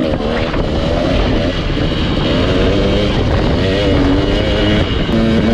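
Dirt bike engine being ridden, its pitch rising and falling with the throttle, over a steady low rumble.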